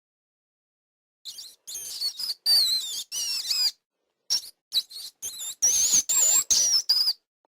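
Rat squeaking: a rapid run of short, shrill squeaks with wavering pitch, starting about a second in and stopping shortly before the end.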